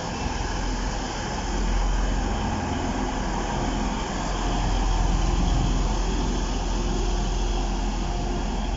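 Class 185 diesel multiple unit running past, its underfloor Cummins diesel engines humming steadily over the rumble of wheels on rail.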